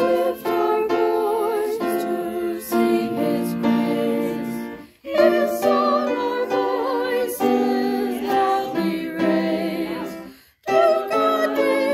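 Church choir singing a four-part (SATB) hymn arrangement together, breaking off briefly between phrases about five and ten seconds in.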